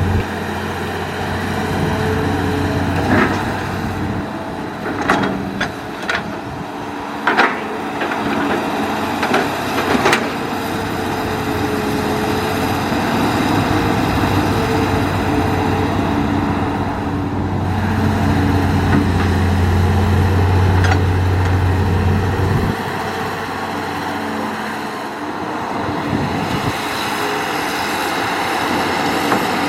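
Hitachi hydraulic excavator's diesel engine running under working load, its drone swelling and easing as the hydraulics work, with a hydraulic whine shifting in pitch. A handful of sharp knocks come between about three and ten seconds in.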